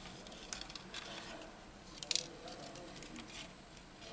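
Light handling noise of a smartphone's display module and frame in the hands: a few faint clicks and taps, the sharpest about two seconds in.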